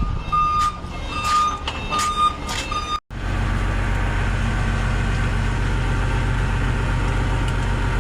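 A high electronic warning beep repeating about once every 0.7 seconds, typical of a truck's reversing or warning buzzer. After an abrupt cut about three seconds in, a large engine runs steadily with an even low hum.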